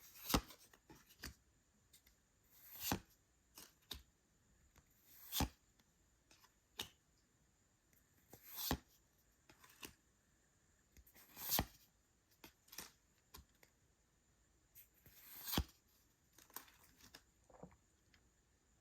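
Pokémon trading cards and their paper packaging being handled close up: a sharp, crisp crack of card or paper every two to three seconds, with small clicks and light rustles between.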